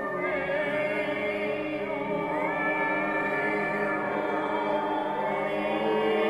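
Ambient vocal music: layered, choir-like voices holding long sustained notes, with slow pitch glides rising between notes about a third of a second and two seconds in.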